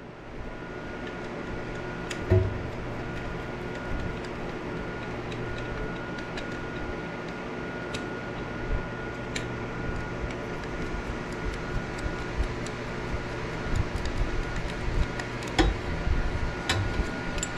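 A steady hum and hiss with a faint high steady tone, broken by scattered light clicks and a few dull knocks, the loudest about two seconds in.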